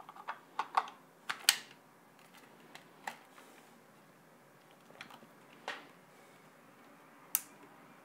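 Sharp plastic clicks and snaps from handling the F&V Z96 LED light panel's plastic housing and battery compartment: a quick cluster in the first second and a half, then single clicks about three and five and a half seconds in. A last sharp click comes near the end as the light is switched on.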